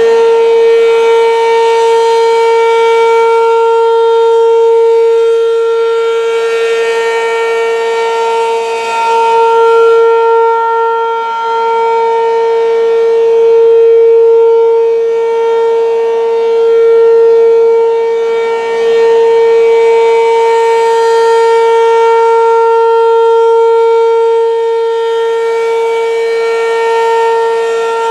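American Signal RM-127 outdoor warning siren sounding a steady Alert tone. One unchanging pitch swells and fades about every six to seven seconds as the rotating siren sweeps past.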